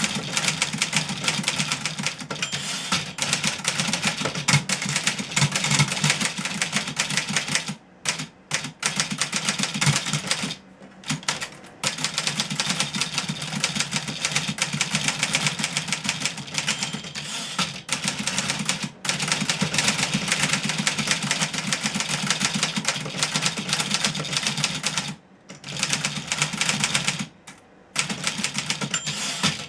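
A fully serviced 1963 Remington Model 11 portable typewriter being typed on: a rapid, continuous run of key strikes broken by a few short pauses.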